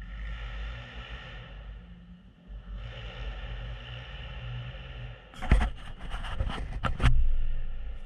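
Side-by-side UTV running along a rough dirt trail, heard from inside the cab as a steady engine and drivetrain hum. About five and a half seconds in comes a burst of loud knocks and rattles lasting over a second.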